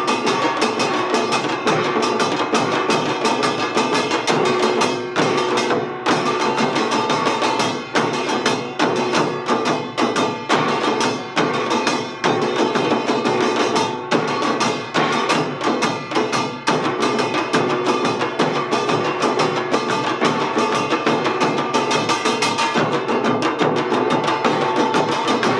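Samul nori ensemble playing Utdari (Gyeonggi-style) rhythms. The kkwaenggwari small gong and the jing gong ring over janggu hourglass drums and buk barrel drums in fast, dense strokes. There are a few short breaks in the pattern partway through.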